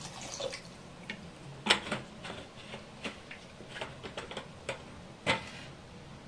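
Irregular small crackles and pops, two sharper ones about two seconds in and near the end, from a steel kadai of mustard-seed, curry-leaf and green-chilli tempering in hot oil that has just had water poured in.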